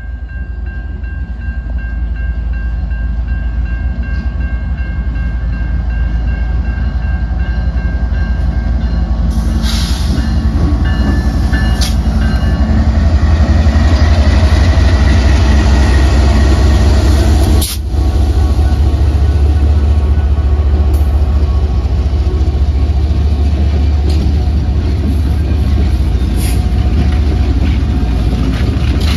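A CN freight train's diesel locomotives rumbling past through a grade crossing, growing louder as the lead engines go by and staying loud as the following units and then the first freight cars roll past near the end. Steady ringing tones from the crossing signal bell are heard during the approach, and the sound drops out for an instant a little past halfway.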